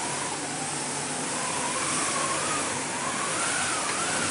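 Hand-cranked theatre wind machine, a slatted drum turning against a cloth cover, giving a steady rush of wind with a whining tone that rises and falls as the cranking speed changes.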